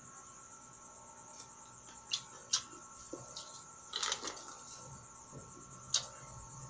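Biting and chewing steamed sweet corn on the cob: a few short, sharp clicks as kernels are bitten off, a cluster of them about four seconds in, with soft chewing between.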